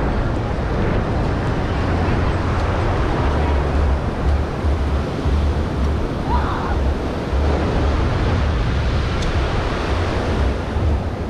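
Ocean surf washing onto the beach in a steady hiss, with wind rumbling on the microphone in gusts.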